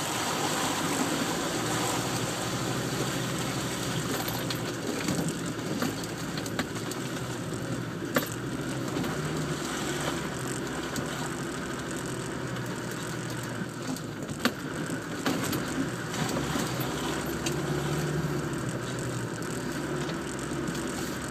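Land Rover Defender's engine running as it drives over a rough, rutted off-road track, heard from inside the cab, the engine note rising and falling a little. A few sharp knocks and rattles from the vehicle over bumps, the loudest about a third of the way in and around the middle.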